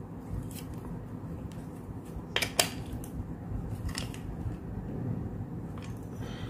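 A few light metallic clicks and clinks as the nut on a coil-winding jig's bolt is tightened with a wrench against its wooden discs, the two sharpest clicks close together about two and a half seconds in.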